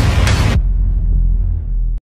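Intro sound effect under an animated logo: a loud noisy hit that stops sharply about half a second in, leaving a deep bass rumble that then cuts off suddenly.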